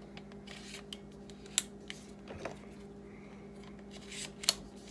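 Plastic Nintendo Switch Joy-Con controllers being slid onto their rails, with several sharp plastic clicks; the two loudest come about a second and a half in and near the end.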